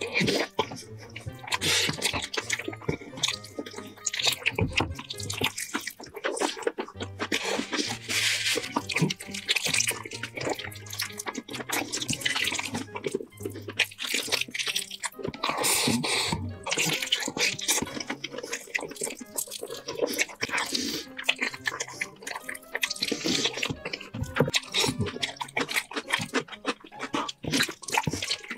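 Close-miked wet chewing, smacking and slurping of braised pork knuckle being bitten and eaten by hand, in quick irregular wet smacks, with soft background music underneath.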